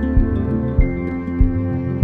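Background music: soft new-age style tune with held notes over a gentle, even beat.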